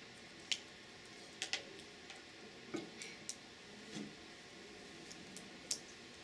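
Hands tapping and clapping against each other and the body while signing: a scattering of short sharp clicks and a couple of softer thuds over a steady room hum.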